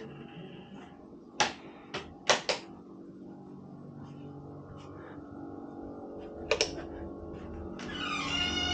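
Several sharp clicks and knocks over a faint steady hum: four within about a second, then a quick double click a few seconds later. Music comes in near the end.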